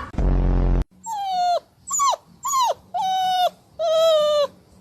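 Pet dog whining in a series of five high-pitched whines, each about half a second long, several falling in pitch, after a brief low rumble at the start.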